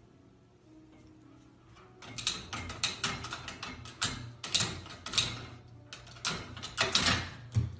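Plastic latch handle of a metal baby gate rattling and clacking as a golden retriever puppy mouths and pulls at it. There is a quick, irregular run of clicks and knocks, starting about two seconds in.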